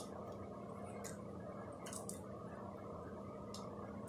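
Faint wet squishes and small crackling clicks of a cooked shrimp being peeled by hand, over a steady low hum.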